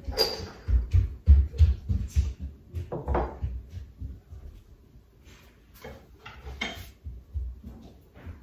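Porcelain decor pieces being lifted off and set down on a wooden sideboard and table: scattered knocks and light clinks, with soft low thumps of footsteps, clustered in the first couple of seconds.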